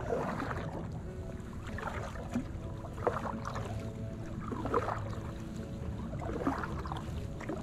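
Double-bladed kayak paddle dipping and pulling through calm water in alternating strokes, a short splash and drip about every second or two.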